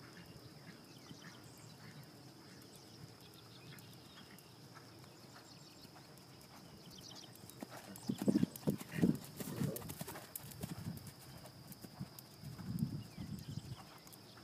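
Hooves of a Thoroughbred horse trotting on soft arena sand: dull thuds that grow loud as the horse passes close about eight seconds in, then come and go.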